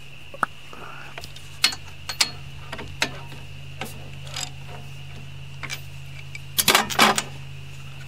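Ratchet wrench clicking as it turns out a small-engine spark plug, with scattered metallic clicks and taps and a quick run of clicks near the end, over a steady low hum.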